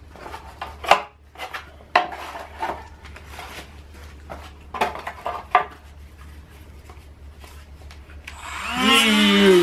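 Light knocks and rustling as black carbon-fibre bracket pieces are handled on cardboard, then near the end a handheld rotary tool starts cutting into one, its loud whine dropping steadily in pitch.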